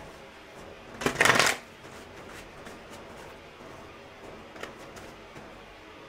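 A deck of tarot cards being shuffled: one short, rapid flutter of cards about a second in, then faint taps and handling of the cards.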